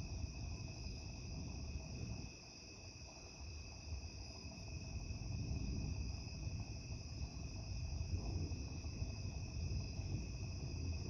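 Night insects, crickets, keeping up a steady high-pitched chorus of several even trills, over a low rumble that dips about two seconds in and then swells again.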